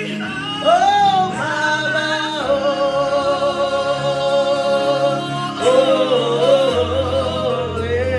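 Slow gospel worship singing: a solo voice sings an "Oh" and then long held, wavering notes over a sustained low accompaniment. A deeper bass note comes in near the end.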